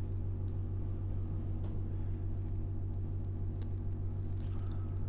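Steady low hum with no change in level, with a few faint small ticks of water from a gloved hand resting in a bowl of water.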